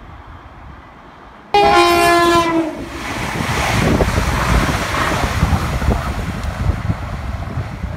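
A passing train sounds its two-tone horn, a higher note then a lower one, for about a second, then runs past with a loud rush and rumble of wheels on the rails.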